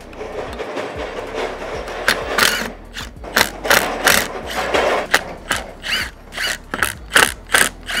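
Cordless impact driver hammering out the countersunk screws that hold the hydraulic coupler's cylinder, which are torqued and held with thread-locker. It runs steadily for about two seconds, then goes in a series of short bursts.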